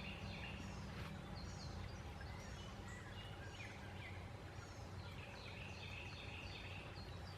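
Trail camera's own recording: a steady faint hiss with a low hum, under many short, high, falling chirps of birds calling in the field.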